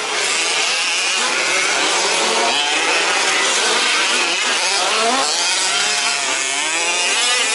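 Several 1/5-scale RC trucks' small two-stroke petrol engines running at once, revving up and down in overlapping rising and falling whines as they race.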